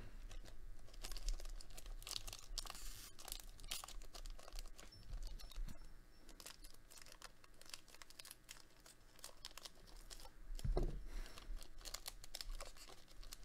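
Thin foil trading-card booster pack crinkling as it is cut open with scissors and handled, a steady run of small crackles and rustles. A short, louder low sound comes near the end.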